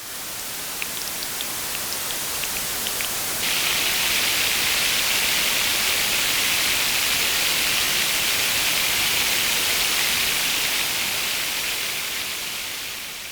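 Synthesized rain from a Eurorack patch: a Mutable Instruments Plaits module with noise from a Kinks module, its patter brought forward by a Magneto delay. A steady hiss carries scattered droplet-like ticks. About three and a half seconds in, the hiss turns brighter and louder, more like a heavy downpour, then fades near the end.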